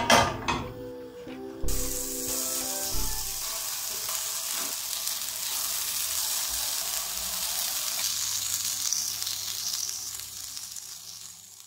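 Oil-brushed potato-and-bean vegetable patties sizzling in a hot non-stick frying pan, a steady hiss that starts about two seconds in after a few knocks and fades out near the end.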